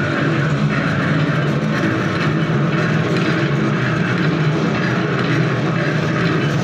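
Automatic thread-rolling machine running, a steady mechanical drone with an even hum.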